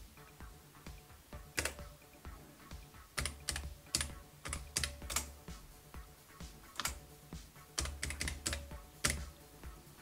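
Typing on an Amstrad CPC 464 keyboard converted to USB: key presses clicking and thumping in short irregular runs with pauses between them. The keys are being tested, and they all register as text on the connected computer.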